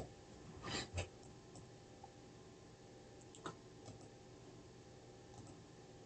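A few faint computer mouse clicks, the loudest about a second in, over a faint steady hum.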